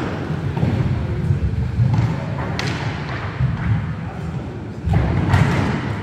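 Roller hockey play in a large sports hall: inline skate wheels rumbling over the wooden floor, with sharp knocks of sticks and ball, the loudest about halfway through and again near the end.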